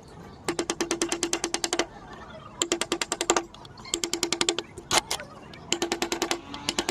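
Woodcarving tool tapping rapidly on wood in four short runs, about ten strikes a second, with brief pauses between runs.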